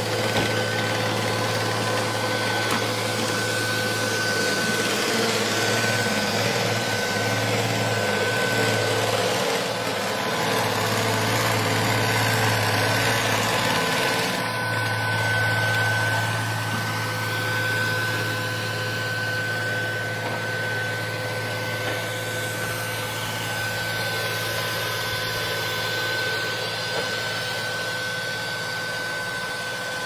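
Neato Botvac D7 robot vacuum running: a steady motor hum and fan whine over the rush of suction, wavering briefly about a third of the way through.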